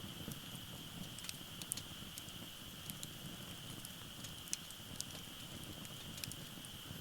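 Wood fire burning in a Uniflame wood grill fire pit, with the low rush of flames and scattered sharp pops and crackles from the burning firewood. A steady high-pitched tone runs underneath.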